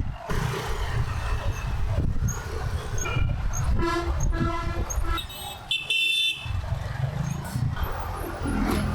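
Road traffic running, with vehicle horns tooting several times near the middle.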